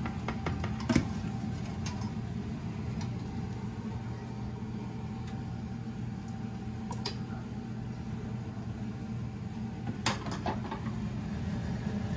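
A ladle and bowl knocking against a stainless steel stockpot as taro is scraped into the broth: one sharp knock about a second in, then a few light clinks around ten seconds in, over a steady low hum.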